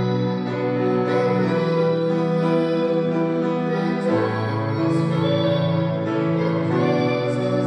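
A woman singing a slow song in long held notes, accompanied by an electric keyboard playing sustained chords.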